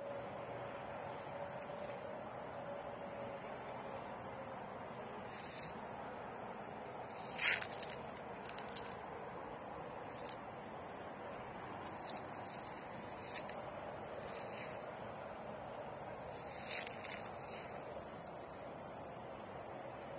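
Crickets trilling continuously at a high pitch. The trill drops out twice for a few seconds and starts again. A few sharp clicks and rustles come through, the loudest about a third of the way in.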